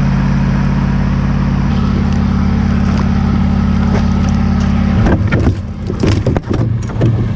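Boat motor running with a steady low hum. From about five seconds in, a hooked pike thrashes and splashes at the boat's side as it is brought aboard.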